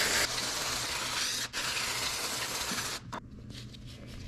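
Aerosol bike degreaser hissing as it is sprayed onto a rear-wheel cassette, with a brief break about a second and a half in and a sudden stop about three seconds in. After that comes a fainter rubbing as a cloth wipes the hub.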